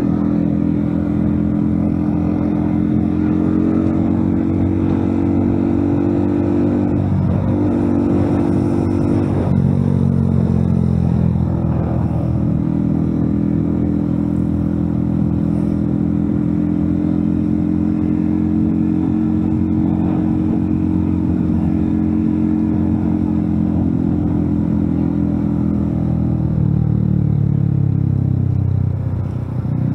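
Motorcycle engine running under way, heard from the rider's seat, with a steady hum over road noise. The engine note drops about a third of the way in and climbs back. It falls again near the end as the bike slows, then picks up.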